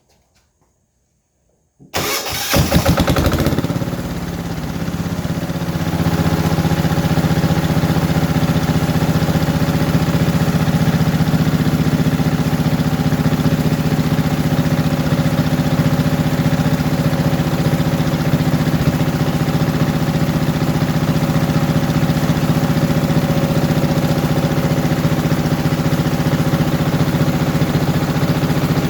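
Wen D6000 diesel generator engine starting about two seconds in, with a short, uneven burst as it catches, then settling into a steady, loud, even run at constant speed.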